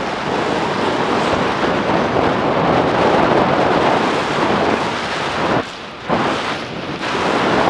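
Wind buffeting the microphone as a steady loud rush, dipping briefly about six seconds in.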